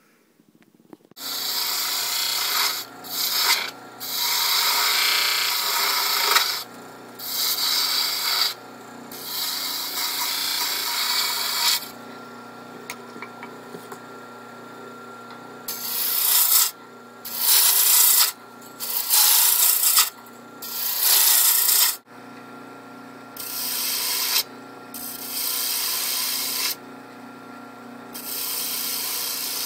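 Detail gouge cutting a spinning maple pepper mill blank on a Jet wood lathe: a dozen or so hissing passes of a second or a few seconds each as shavings are peeled off, with short pauses between them, over the lathe's steady motor hum.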